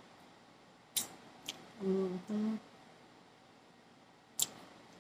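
A fork clicks against a plate three times while food is cut and eaten. About two seconds in there is a short two-note 'mm-mm' hum with the mouth closed while chewing.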